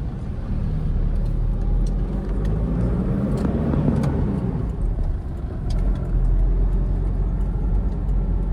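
Toyota Innova on the move: a steady low rumble of engine and road noise, swelling and easing again around the middle.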